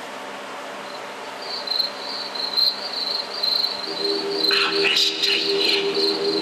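Crickets chirping in a steady pulsing trill. A low steady tone comes in about four seconds in, and the chirping grows louder.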